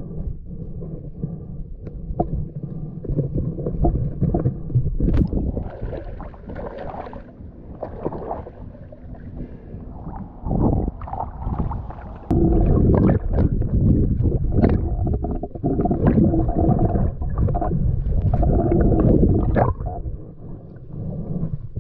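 Muffled underwater rumbling and gurgling of moving river water, rising and falling in irregular surges, with a few sharp clicks.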